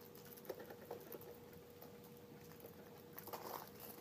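Faint small clicks and light rattles of wrapped candy being pushed into the plastic slots of a toy vending machine, over a faint steady hum.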